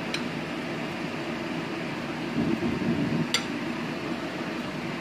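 A metal ladle clinking against the dishes twice, once at the start and once about three seconds in, as thick curry is spooned from the pot onto a ceramic plate, over a steady background hum.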